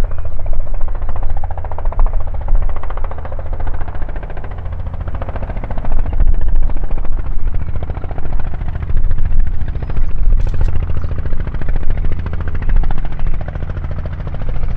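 Robinson R44 Raven II helicopter in low, slow flight: a rapid chop from its two-bladed main rotor over the drone of its six-cylinder Lycoming piston engine. The sound swells and eases as it comes closer.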